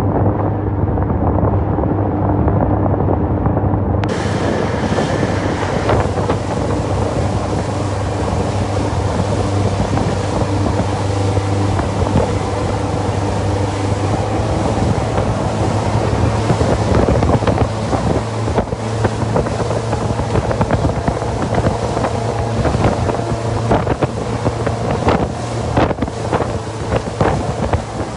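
Boat engine running at a steady drone, with wind buffeting the microphone, more so in the second half.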